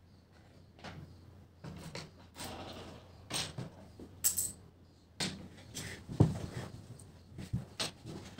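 Handling of small plastic paint pots and a paintbrush on a wooden tabletop: scattered clicks, taps and rustles, with a sharp click about four seconds in and a knock about six seconds in.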